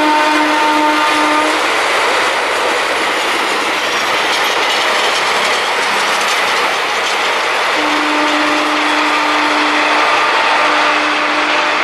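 Passenger express coaches running past at speed, a steady rush of wheel and rail noise. A single-pitched horn sounds in short broken blasts at the start and again for several seconds near the end.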